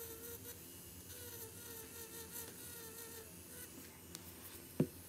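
Metal cuticle pusher scraping loose skin at the edge of a fingernail, over a faint steady buzzing hum that fades after about three seconds. A sharp click comes near the end.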